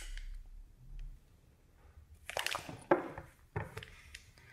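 Soft handling noises as hands gather sheets of polymer clay on a ceramic tile work board. Several short rustling scrapes come in the second half.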